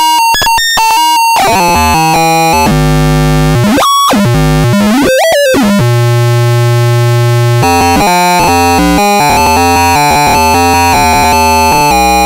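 Homemade circuit-bent noise synthesizer with a step sequencer, playing loud chiptune-like electronic tones: a quick run of short stepped beeps, then a dense buzzing drone that swoops down and back up in pitch twice, then stepped sequenced notes again from about halfway through.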